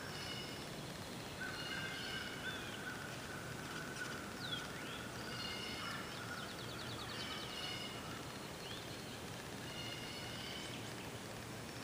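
Several wild birds singing and calling over one another: repeated high phrases, a quick trill of rapid notes in the middle, and a few short sliding whistles. A steady, lower, high-pitched tone runs under the first half.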